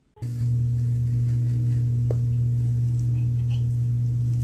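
A loud, steady low hum that starts abruptly just after the start, with a few faint ticks over it.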